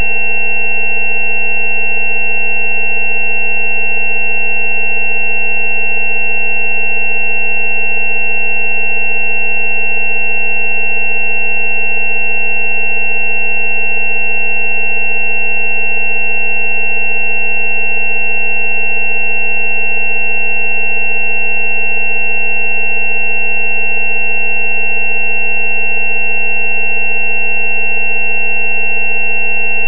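Steady synthesized sine tones that never change: a low 190 Hz tone, presented as a 'healing frequency' for dental abscesses, sounds under several higher tones. The loudest of these is a high-pitched one.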